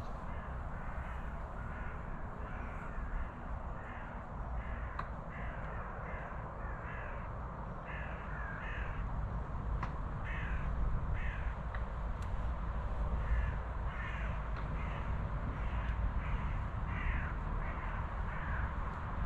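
Birds calling over and over, short calls coming in quick runs, over a low steady rumble.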